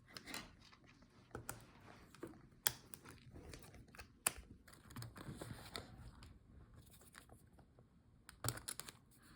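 Faint, irregular small clicks and taps as cable connectors are unclipped and pulled from a laptop motherboard, with a quick cluster of clicks near the end.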